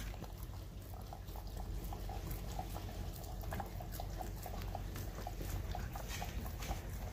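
Chocolate Labrador eating soft ground-meat food from a stainless steel bowl: steady wet chewing and smacking, about three times a second.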